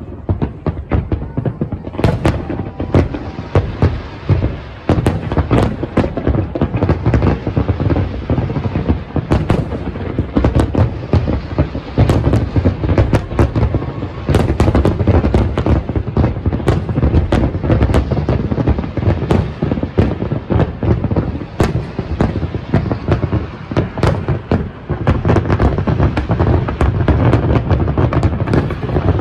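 Large fireworks display: a dense, unbroken run of booms and crackling bursts, several a second, over a heavy low rumble.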